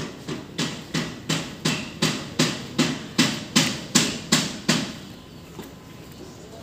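Footsteps of the person filming, walking briskly on a concrete lane, about three steps a second; they stop about five seconds in.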